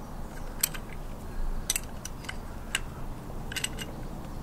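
About five light, sharp metallic clicks, roughly a second apart, from handling a motorcycle brake caliper and its pads.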